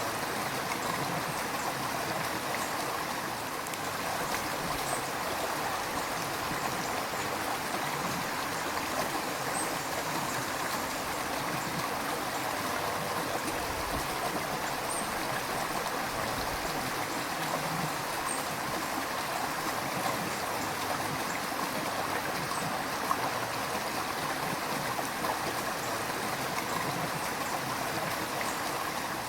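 A river's flowing water, a steady rushing and gurgling that holds even throughout.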